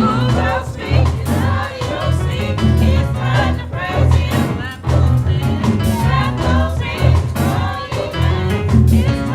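Gospel praise music: voices singing over a band with a strong bass line and a regular beat.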